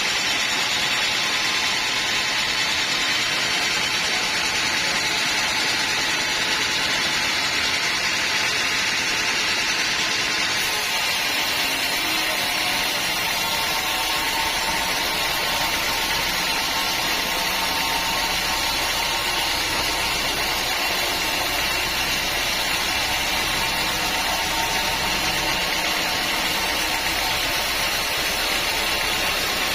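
Sawmill saw running steadily as it saws teak logs: a continuous loud mechanical noise, strongest in the upper middle, with a deeper rumble coming up about twelve seconds in.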